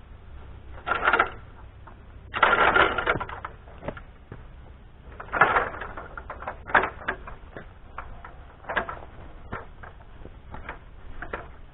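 Irregular knocks and clatter, with louder bursts about a second in, around two and a half seconds in and about five and a half seconds in, over a low steady rumble.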